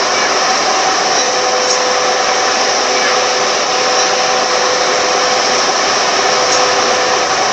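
Car air-conditioning blower running steadily: an even rush of air with a faint steady hum.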